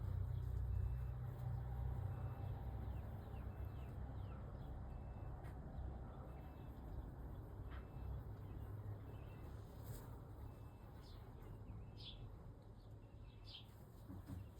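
Low engine rumble of a vehicle slowly fading away, with faint evenly repeating beeps like a reversing alarm. In the second half, several short high bird chirps.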